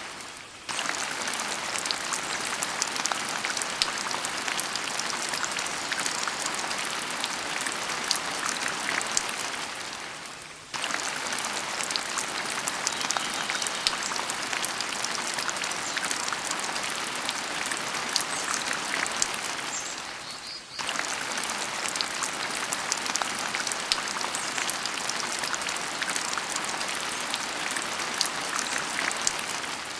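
Steady rain pattering, a dense hiss full of small drop ticks. About every ten seconds it fades down and cuts straight back in, like a looped rain track.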